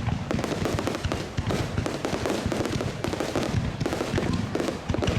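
Aerial fireworks going off in rapid succession, a dense run of bangs and crackles close together.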